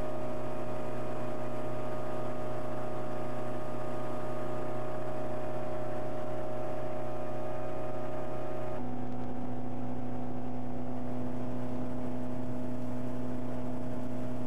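Motorboat engine running steadily while under way, heard from on board with a steady hiss of water. About nine seconds in its note shifts slightly lower and the hiss lessens.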